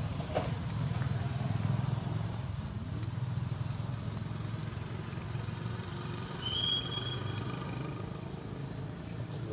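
Steady low rumble of motor traffic, with one short high-pitched squeal from a baby monkey about two-thirds of the way through.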